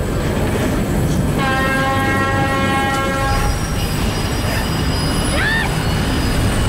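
A train passing close by with a heavy, steady rumble; its horn sounds for about two seconds starting a little over a second in, followed by high-pitched wheel squeal.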